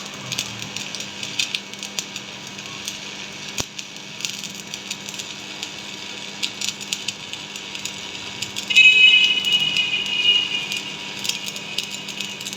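Metalworking noise: a steady crackling hiss with many sharp clicks, and a high squeal for about two seconds starting about nine seconds in.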